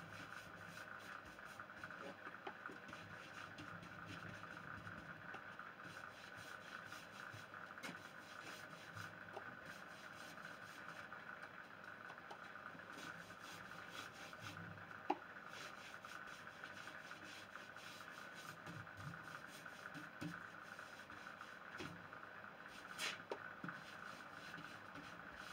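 Faint rubbing of a cloth working Briwax paste wax into a stripped pine door, over a steady faint hum. There are scattered soft scuffs and a couple of light clicks, one about halfway through and one near the end.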